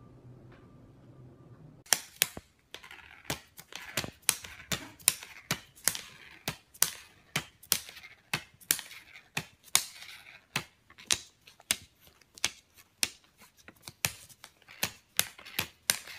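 Crisp crackling clicks, irregular at about two to three a second and starting about two seconds in, as a cat noses and paws through a pile of plastic (polymer) banknotes and crinkles them.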